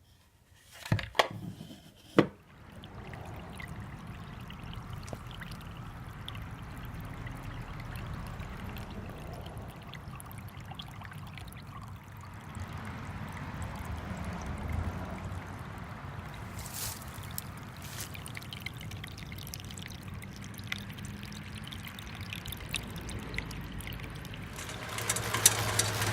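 Water pouring and trickling steadily, after a few sharp knocks in the first two seconds.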